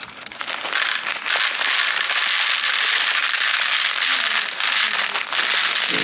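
A loud, dense crackling hiss full of small pops and clicks that starts suddenly.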